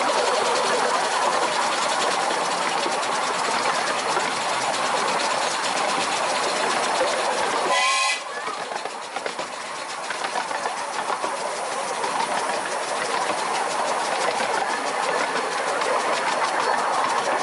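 Bassett-Lowke Class 30 Atlantic 15-inch gauge steam locomotive "Count Louis" running, with a brief whistle toot about halfway through, after which the sound drops and gradually builds up again.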